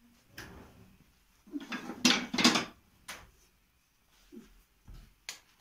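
Kitchen utensils and dishes clattering: a series of knocks and rattles, loudest in a burst about two seconds in, with a few single knocks after.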